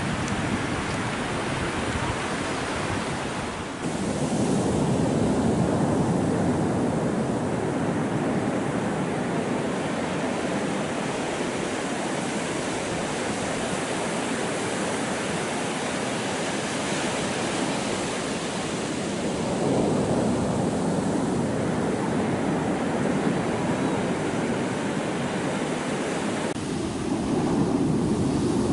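Ocean surf breaking on a sandy beach: a steady wash of waves that swells louder a few times, changing abruptly about four seconds in and again near the end.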